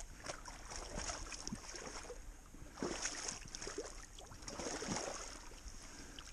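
Shallow water sloshing, with small irregular splashes, as a hand and a stick are worked through it.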